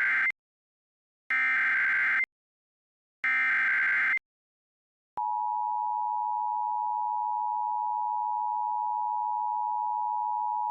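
Emergency Alert System tones announcing a tornado warning. The end of one SAME header data burst is followed by two more full bursts of digital data, each about a second long with a short gap between. About five seconds in, the steady two-tone EAS attention signal starts and holds.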